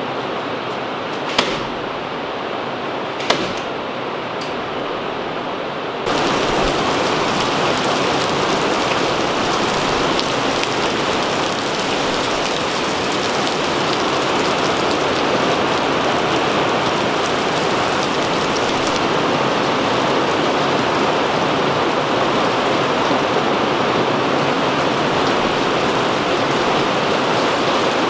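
A steady hiss with two sharp snaps about a second and a half and about three seconds in: a nail gun fired into the ceiling boards. About six seconds in this gives way to louder, steady rain, a hiss that reaches higher in pitch and stays even from then on.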